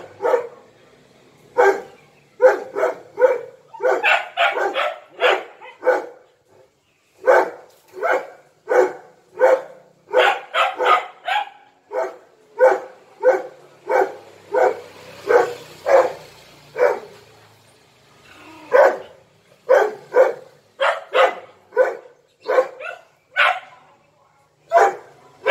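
Dogs barking in a long run of short, sharp barks, about one or two a second, with brief pauses about six seconds in and again around seventeen seconds.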